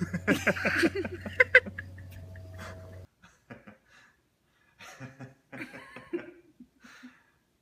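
A man laughing heartily, a quick string of "ha-ha" bursts, then, after an abrupt change about three seconds in, softer, broken-up chuckling.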